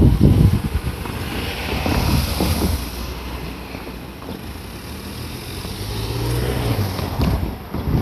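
Wind buffeting the microphone, giving way to the running noise of an electric commuter train heard from on board, with a low motor hum that swells and fades about six seconds in.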